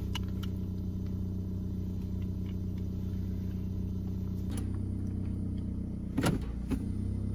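Car engine idling, a steady low hum heard from inside the cabin; its note changes slightly about halfway through, and near the end there are a couple of short clicks as the automatic gear selector is moved.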